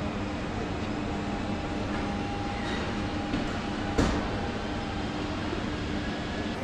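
Steady hum of machinery on a car assembly line, with a few steady tones through the noise. There is a sharp metallic knock about four seconds in.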